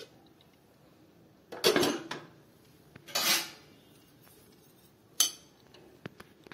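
Stainless steel kitchenware clattering: three separate metal clanks about a second and a half apart, the first two longer rattling ones, the third a short sharp clink, with a couple of faint taps near the end.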